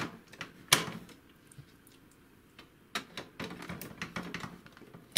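Plastic clicks and knocks as a tri-colour ink cartridge is pushed into the print carriage of an HP DeskJet 2130 printer. There is one sharp click about three-quarters of a second in, then a run of lighter clicks and taps from about three seconds in.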